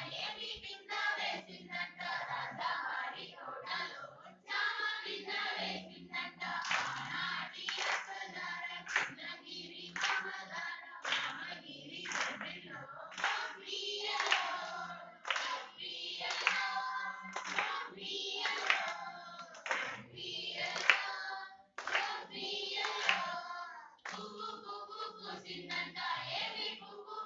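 A group of women singing a Telugu folk song together, with steady rhythmic hand clapping as they dance in a circle.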